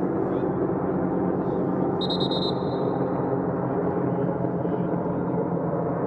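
A referee's whistle blown once, a short trilling blast about two seconds in, over steady loud background noise.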